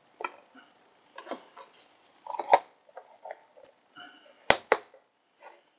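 Someone puffing on a long-stemmed tobacco pipe: a run of short, wet pops and clicks at the lips on the stem, the sharpest about halfway through and a close pair about a second before the end.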